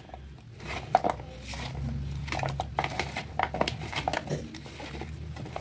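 A bare hand mixing raw fish pieces with spices and sliced vegetables on a ceramic plate: soft squishing with scattered light clicks against the plate.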